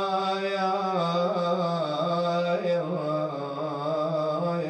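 A man chanting an Arabic mourning elegy (nai) into a microphone, drawing a single phrase out in long, wavering held notes.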